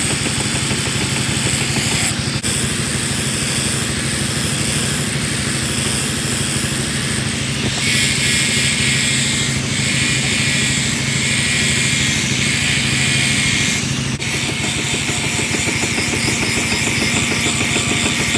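Electric angle grinder grinding the serrated spine of a steel knife blade: a steady motor hum under a loud hiss of the wheel on steel, which changes tone about eight and fourteen seconds in.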